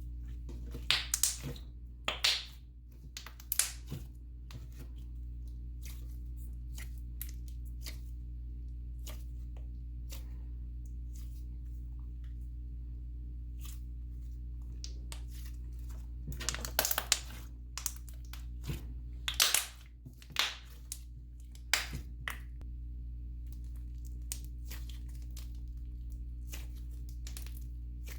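Thick cloud cream slime being stretched and pulled apart by hand, making crackly tearing sounds in two clusters, near the start and again past the middle, over a steady low hum.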